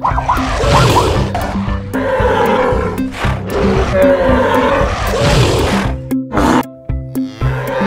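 Background music with steady held notes, overlaid by several long, loud animal calls one after another.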